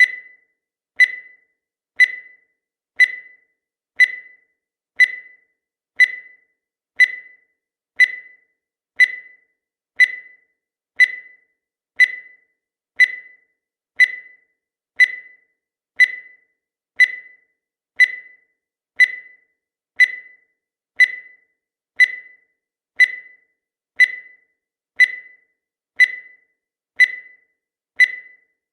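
Countdown timer sound effect: a short high beep once every second, each struck sharply and fading quickly, with silence between beeps.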